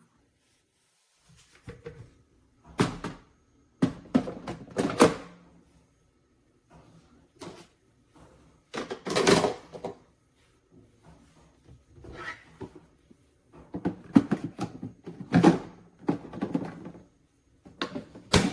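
An irregular series of knocks, clunks and rattles, about a dozen in all, from objects being handled and set down, with short quiet gaps between them.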